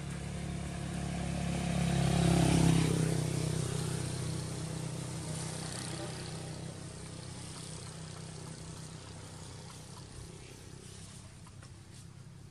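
A motor vehicle's engine passing by: it grows louder over the first two to three seconds, then slowly fades away.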